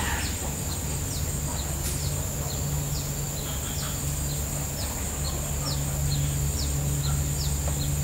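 Outdoor ambience: a bird repeating short, falling chirps about twice a second over a steady high-pitched insect drone and a low hum.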